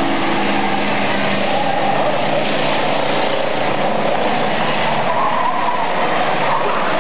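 Racing stock car engines running on the track together, a loud, steady drone whose pitch wavers up and down as the cars circle.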